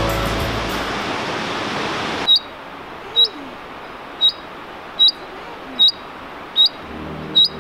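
Steady rush of falling water for about two seconds, then a sudden cut to a quieter scene where a bird repeats one short, high chirp about once every second. Music comes back in near the end.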